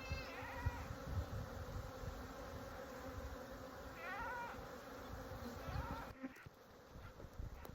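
Honeybees buzzing steadily around an opened nucleus box, agitated. A few short rising calls cut across the buzz, and the buzz gets quieter after about six seconds.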